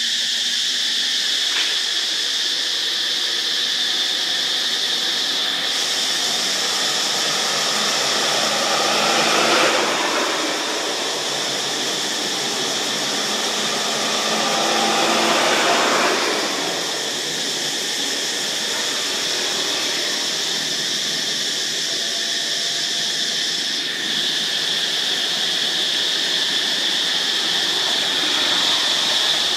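Steady high-pitched drone of insects calling in chorus. A broader rushing noise swells up twice, about a third and halfway through.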